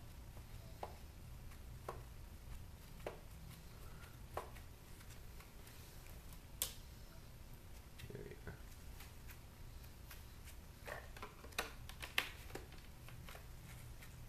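Faint clicks and scrapes of a small screwdriver and gloved hands working the screws out of a portable DVD player's casing: scattered single clicks, then a quicker run of them near the end, over a low steady hum.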